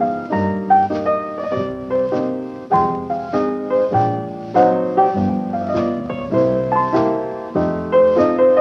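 Background piano music: a flowing run of quick notes and chords.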